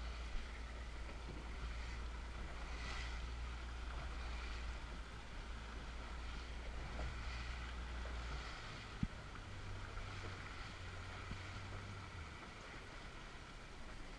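Small fishing boat's engine running steadily at low speed, with water washing along the hull; the engine's low drone shifts in pitch about eight and a half seconds in. A single sharp knock about nine seconds in.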